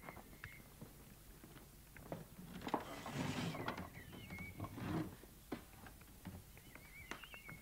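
Scuffing and light knocks of someone moving about a room, with a louder rustling scuffle about three seconds in. A small bird chirps faintly several times in the background.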